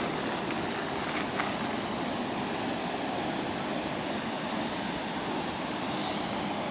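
Steady outdoor background noise, an even rushing hiss with no distinct sounds standing out.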